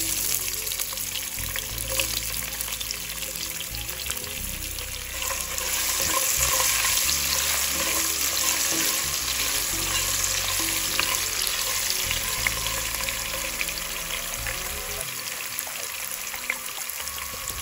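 Chopped garlic sizzling and crackling in hot oil with whole spices in a pot, stirred with a silicone spatula. The frying grows louder about five seconds in.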